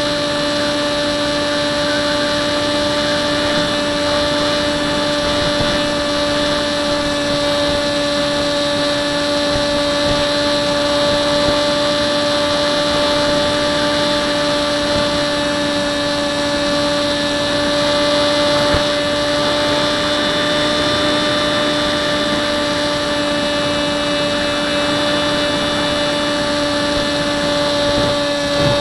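Electric motor and propeller of a Hubsan Spyhawk RC plane in flight, heard from a camera mounted on the airframe: a steady whine that holds one pitch throughout, over a rush of wind noise.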